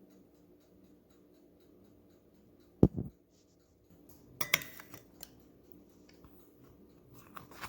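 Kitchen handling sounds: a sharp, heavy thump as something is set down on the counter about three seconds in, then a brighter clatter of a utensil or dish with a short ring, and a smaller click.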